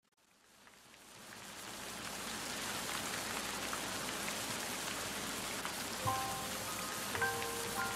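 Steady rain falling, fading in from silence over the first two seconds. About six seconds in, soft music notes begin over the rain.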